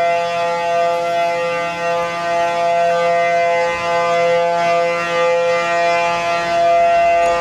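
Civil defense warning siren, an old World War II air raid siren now part of the Pacific tsunami warning system, sounding a loud, steady tone: the tsunami warning.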